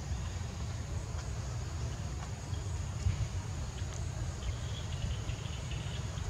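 Steady high, thin insect drone over a constant low rumble, with a few faint clicks.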